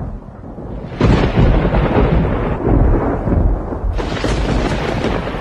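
Thunder rumbling, with a sudden loud clap about a second in and another burst of crackle about four seconds in.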